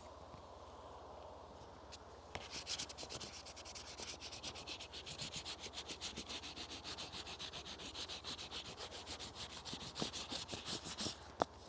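Quick, even back-and-forth rubbing of a kitchen pasta-dough tool over wet watercolor paper pressed against tree bark, many strokes a second, starting about two seconds in. A single sharp knock near the end.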